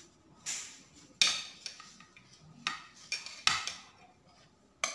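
A metal knife blade scraping and clinking against a stainless steel plate as it is slid under pieces of barfi to lift them. There are about seven short, sharp scrapes and taps.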